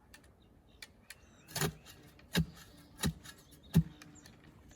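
A digging tool driven into hard red clay while a post hole is dug: four heavy chopping thuds with a metallic clink, about 0.7 s apart, starting a little after a second in.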